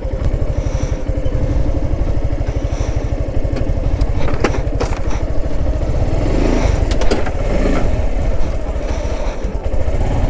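Motorcycle engine running steadily at low revs, with a few sharp knocks about four to five seconds in.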